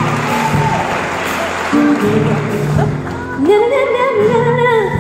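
A woman singing live into a microphone over a band's bass and guitar, with a long, wavering held note that rises about three and a half seconds in. Audience cheering dies away in the first second.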